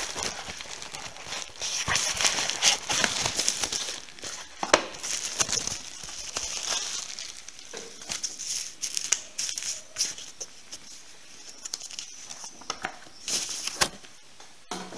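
Packaging of a magazine-and-parts issue being torn open and handled: irregular crinkling and rustling with sharp snaps now and then.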